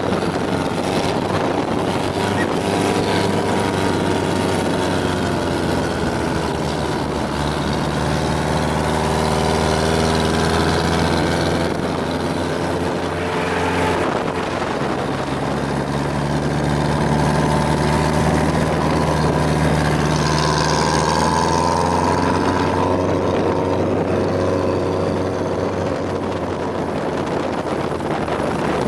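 A motor engine running continuously, its pitch drifting slowly up and down, with shifts in its note about 14 and 22 seconds in.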